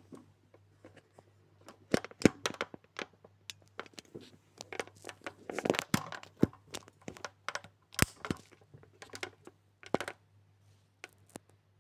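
Irregular crackling, clicking and rustling of handling close to the microphone, as hands work a piece of plasticine and grip the phone, with sharp knocks about two seconds in and about eight seconds in.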